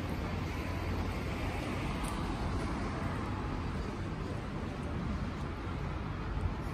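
Steady city street ambience: a continuous low traffic rumble.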